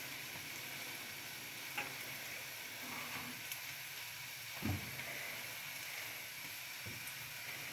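Small pancakes frying in butter in a frying pan, a steady sizzle. A soft thump comes about halfway through, with a couple of faint clicks.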